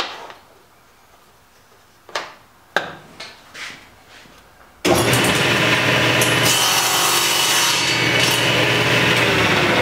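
A few light knocks, then about five seconds in a table saw starts abruptly and runs at a steady level, crosscutting a small wooden strip on a crosscut sled into short spacers.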